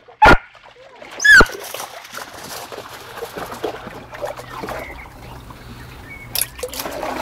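A dog gives two short cries in the first second and a half, the second a high yelp, over the trickling and splashing of a shallow stream as the dogs wade and swim through it.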